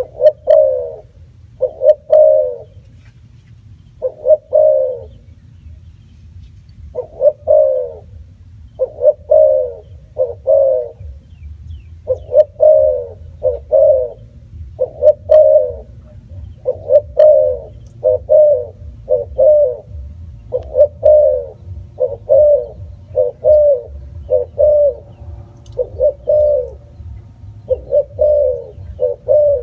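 Spotted dove cooing: short, low coos, mostly in close pairs, repeating in a near-unbroken run.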